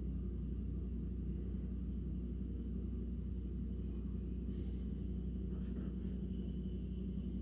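Steady low rumble of fire engines' diesel engines running in the street, with a short hiss about halfway through.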